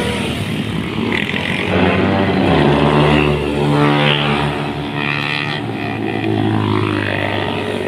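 Motorcycle engines running as the bikes ride past on a road. One engine's note swells about two seconds in and holds steady until near the end.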